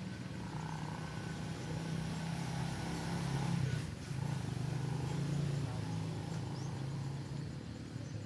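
A low, steady motor drone that dips briefly about four seconds in and then picks up again.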